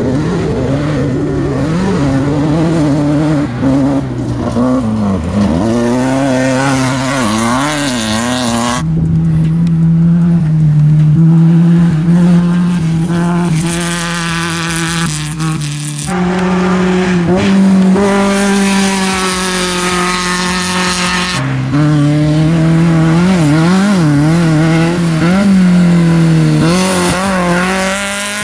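Off-road race vehicles' engines revving hard, the pitch rising and falling, in several clips cut together with sudden changes about 9, 16 and 21 seconds in.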